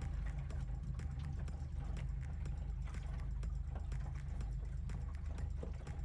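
Small motorboat's engine running steadily under way, a low hum heard from inside the closed cabin, with frequent irregular light knocks and rattles.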